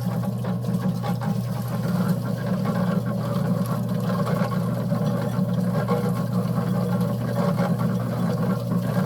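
Concrete mixer running steadily, its motor humming and the drum turning at an even speed.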